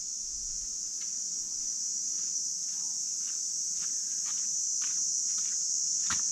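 Steady high-pitched drone of a chorus of insects, with faint footsteps crunching on a sandy, leaf-strewn path at about two steps a second.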